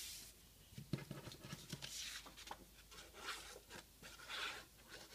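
Faint rustling and scratching of construction paper being handled, with light irregular taps as a white glue bottle is run along the edges of a paper cut-out.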